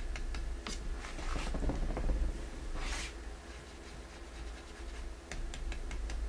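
Dry paintbrush rubbing and tapping on the wooden surface of a treenware bowl while dry-brushing paint. There is a quick run of light taps, then scratchy rubbing strokes, one louder stroke about three seconds in, and more light taps near the end, over a steady low hum.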